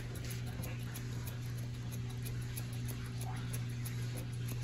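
Electric box fan running with a steady low hum.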